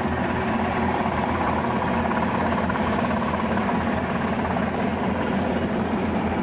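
Heavy diesel engine of a fire and rescue truck running steadily, a low, even drone.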